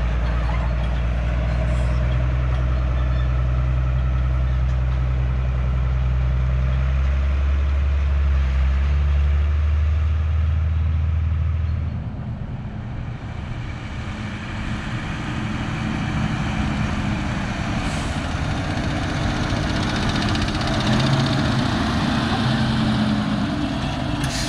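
Fendt tractor diesel engines running as the tractors drive: a steady, deep six-cylinder drone for about the first half, then an abrupt change to a rougher engine sound with tyre and trailer rolling noise as the tractor and its forestry trailer pass close by.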